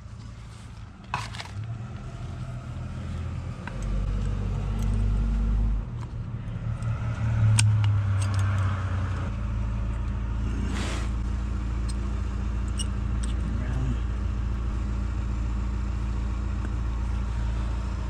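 A motor running with a steady low hum that builds over the first several seconds and then holds at a constant level. A few sharp metallic clinks are heard over it.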